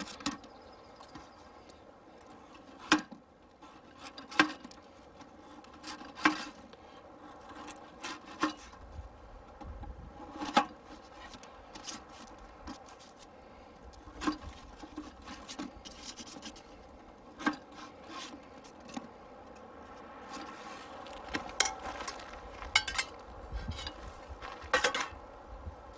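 Kitchen knife cutting a peeled potato into chunks on a paper plate: a soft scraping of the blade through the potato, with about a dozen sharp, irregularly spaced taps as the blade meets the plate and table. Near the end, a quick run of clicks and knocks as a cooking pot is handled.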